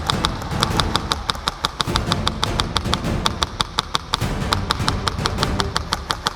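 HPA-powered airsoft rifle with a Heretic Inferno Gen II engine firing a rapid string of shots, several sharp clicks a second with brief pauses between strings.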